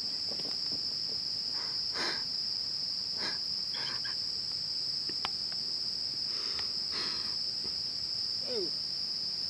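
A steady, high-pitched drone of insects calling in the forest, with a few short faint knocks or rustles.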